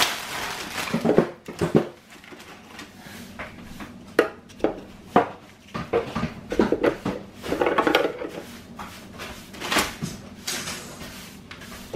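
Cookies being set down and stacked inside a clear plastic jar: scattered light clicks and knocks at irregular intervals, with a few longer stretches of rustling handling noise around the middle.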